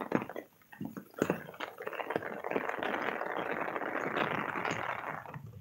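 Rain falling and splashing on a wet concrete veranda: a few taps and knocks, then a steady dense hiss of water from about two seconds in that cuts off suddenly near the end.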